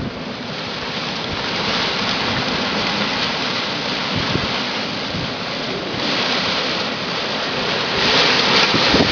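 Strong bora wind gusting: a steady rushing hiss of thrashing palm fronds, with low thumps of wind buffeting the microphone, growing louder near the end.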